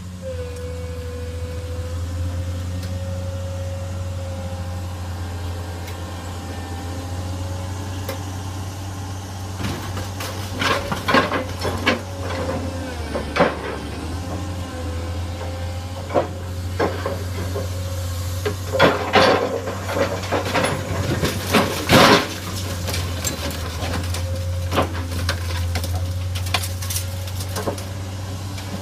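Excavator's diesel engine running steadily with a hydraulic whine. From about ten seconds in come repeated crunches and bangs of metal as the machine smashes a car body, the loudest near the middle and again about two-thirds through.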